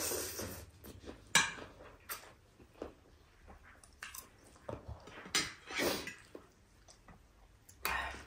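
Eating sounds: irregular short bouts of chewing and slurping of food, with a sharp click about a second and a half in.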